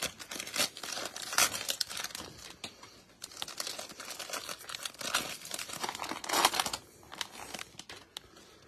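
Trading-card packaging being torn open and crinkled by hand: a green cello multi-pack box and a silver foil card pack. It is a run of crackles and rips, loudest about one and a half seconds in and again about six and a half seconds in, then quieter near the end.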